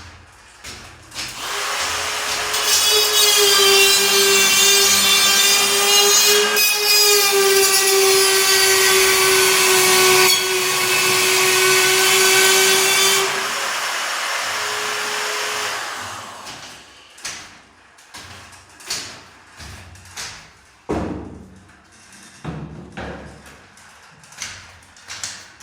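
A cordless drywall cut-out tool (DEWALT DCS551B) spins up with a steady high whine and cuts through gypsum board with loud gritty noise for about ten seconds, then runs lighter for a couple of seconds and stops. Afterwards come a series of separate knocks and taps.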